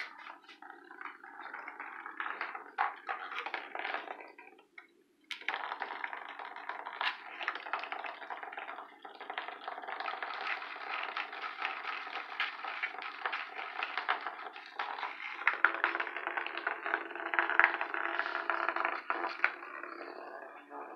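A Hexbug vibrating robot bug buzzing and clattering on a hardwood floor: a dense rattle of fast clicks, broken once briefly about five seconds in.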